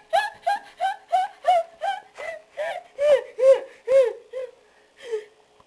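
A girl's high-pitched squealing laugh, the 'zebra laugh': a rapid string of short 'ee-ee-ee' squeals, about three a second, that thins out and stops near the end.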